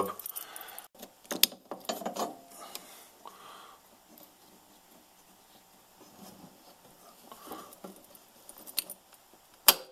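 Metal clicks and clinks of locking pliers being worked on the snowmobile's drive sprocket: a cluster of sharp clicks in the first couple of seconds, a quieter stretch, then one sharp click near the end.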